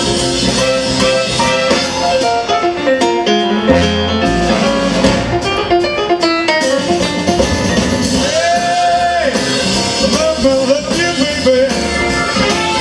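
Live big band music with a grand piano playing, and one long held note about eight seconds in.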